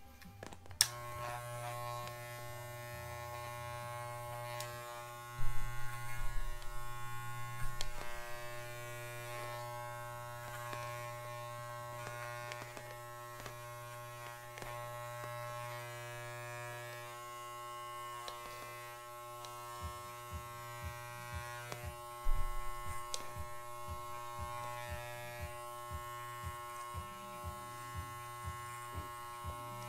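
Corded electric dog clipper switched on about a second in and running with a steady motor hum and buzz while it clips a dog's coat. It gets louder in two stretches, about five seconds in and again about twenty-two seconds in.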